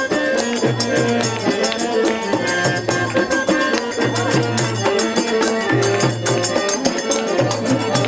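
Bangladeshi folk music: a two-headed barrel drum beating in a dense rhythm of sharp strikes, under a melody line.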